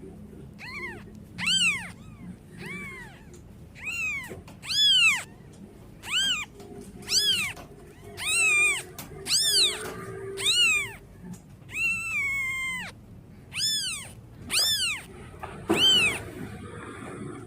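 A young kitten mewing over and over, about a dozen high-pitched cries roughly a second apart, each rising and then falling in pitch, with one longer, drawn-out cry about two-thirds of the way through. These are the calls of a kitten calling for its mother.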